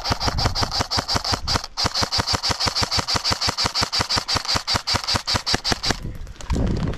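Airsoft electric gun firing full-auto in one long, even string of rapid shots that stops about six seconds in.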